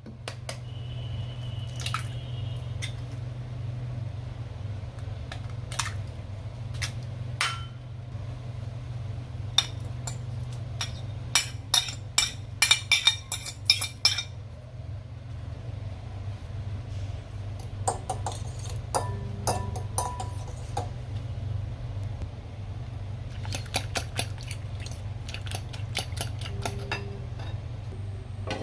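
Kitchen utensils clinking against a bowl and dishes, with two quick runs of rapid clicks like eggs being beaten for a rolled omelet, over a steady low hum.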